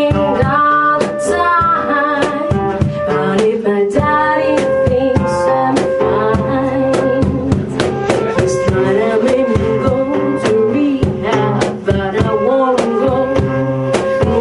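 Live band rehearsal: a woman sings over guitar and drum accompaniment, and from a few seconds in a flute plays long held melody notes.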